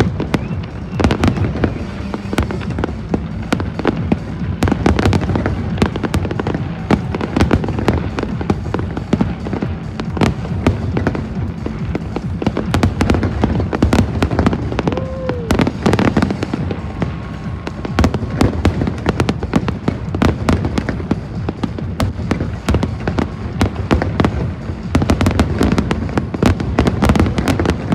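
Fireworks display with a dense, continuous run of bangs and crackles from aerial shells, with music playing underneath.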